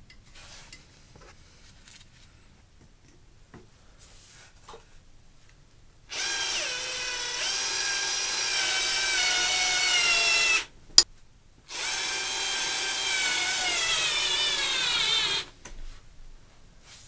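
Cordless drill running twice, about four seconds and then about three and a half, driving bolts into a go-kart wheel hub. Its whine drops in pitch during each run as it takes up load. A few faint clicks of parts being handled come first, and there is a single sharp click between the two runs.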